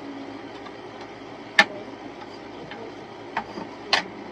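A few sharp clicks and knocks from handling and fitting parts of a sewing machine, the loudest about a second and a half in and two more near the end, over a steady background noise.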